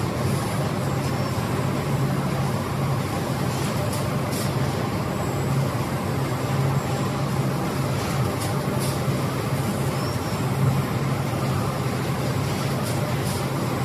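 Carton production-line machinery running steadily: an even industrial din over a low hum, with a few faint ticks in pairs.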